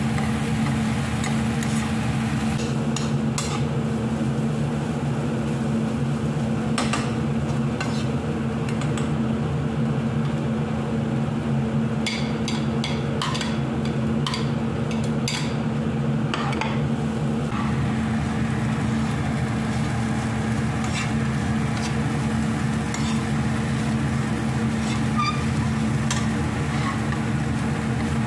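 A spatula stirring and scraping a shredded vegetable filling frying in a nonstick pan, with a steady sizzle and scattered clicks and taps of the utensil, most of them around the middle. A steady hum runs underneath.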